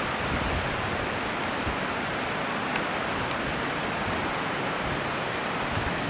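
Steady, even rushing noise of outdoor ambience at the water's edge, with light wind buffeting on the microphone now and then.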